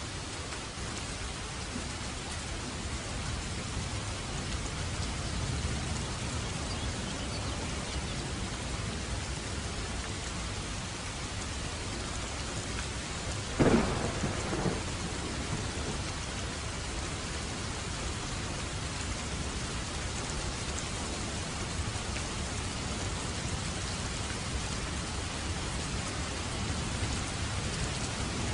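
Steady rain falling, with a sharp thunderclap about halfway through that trails off in a brief second crack.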